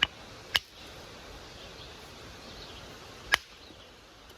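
Chunk of quartzite being struck to knock off a flake: three sharp cracks with a short ringing note, two close together at the start and one about three seconds later.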